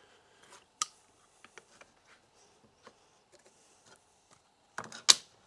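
Scattered light clicks and taps of wood pieces and small hand tools being handled on a workbench, with a sharp click about a second in and a louder double knock near the end.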